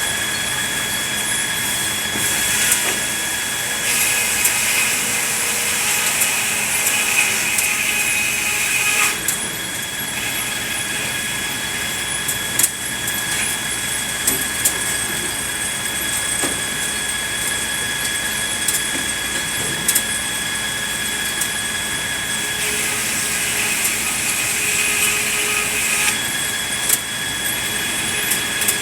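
Sawmill machinery sawing red pine cants, running with a steady high whine and scattered knocks. Twice, for a few seconds each (about 4 s in and again about 23 s in), the sound changes and grows noisier.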